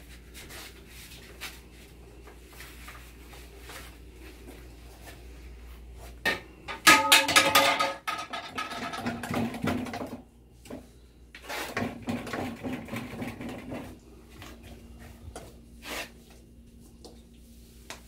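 Paint roller at work: soft rubbing as it rolls paint onto a wall and is reloaded at a paint container on the floor. About seven seconds in comes a loud, squealing scrape, followed by more scraping, with another stretch of it a few seconds later.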